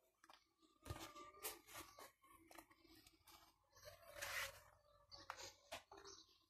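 Faint footsteps crunching irregularly on dry dirt ground, with a longer scuffing rustle about four seconds in.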